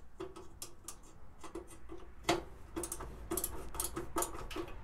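Screwdriver working the screws of a Suburban NT-30SP furnace's metal burner plate, making an uneven run of clicks, about three a second, with one louder click a little past two seconds in.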